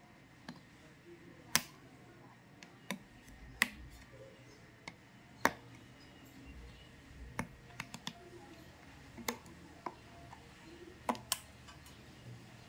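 Sharp plastic clicks and crackles, irregular and roughly one a second, from a plastic squeeze bottle of Ujala liquid whitener as it is gripped and its cap is worked open.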